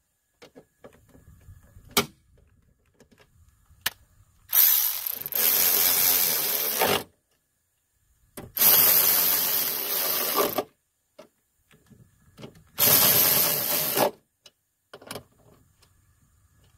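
Cordless electric ratchet running in the window regulator's mounting bolts in three bursts, roughly two and a half, two, and one and a half seconds long, with a few light clicks between them.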